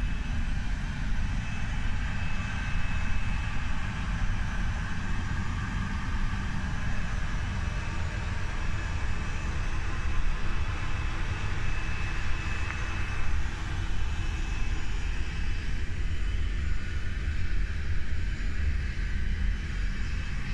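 Steady low-pitched background noise inside an Airbus A350-900, with a thin, faint high tone that comes and goes.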